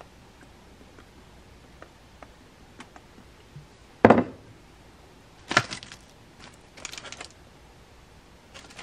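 Kitchen-counter handling sounds in a quiet room: one loud sharp knock about four seconds in, another about a second and a half later, then a few light clicks and taps. These come from setting down the hot sauce bottle and the plastic food basket and laying the top bread on a sandwich.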